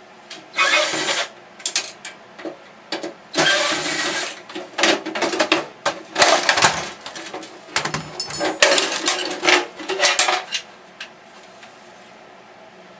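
Projector being taken apart for scrap: a string of short, noisy mechanical bursts, each up to about a second long, that stops a couple of seconds before the end.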